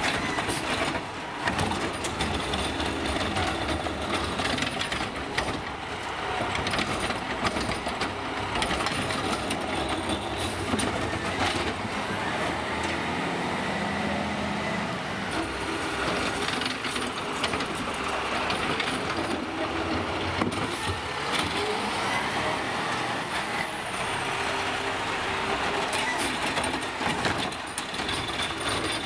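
Peterbilt McNeilus ZR automated side-loader garbage truck working its route: engine running, with air-brake hisses and a few sharp knocks. A high whine rises and falls twice, about halfway through and again near the end.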